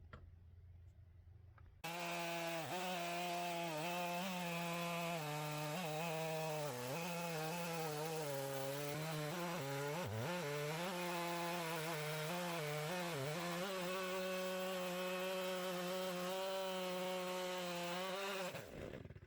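Stihl two-stroke chainsaw in an Alaskan mill running at full throttle, ripping through an oak log. It starts abruptly about two seconds in, its pitch dipping repeatedly as the chain bogs in the cut, then falls away near the end as the throttle is released.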